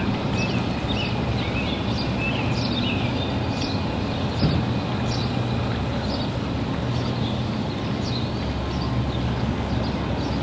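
A steady engine hum runs under birds chirping, short falling chirps coming once or twice a second.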